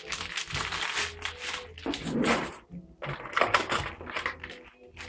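Clear plastic bag crinkling and rustling as it is handled, in irregular bursts with a short pause about three seconds in.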